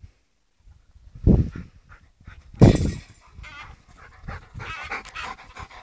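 A dog panting close up, with two loud, short low bumps in the first three seconds.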